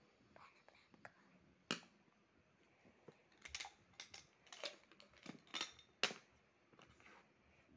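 Faint handling sounds of drawing materials on paper: a sharp tap about two seconds in, then a run of short clicks and rustles from about three and a half to six seconds, ending in a sharp click.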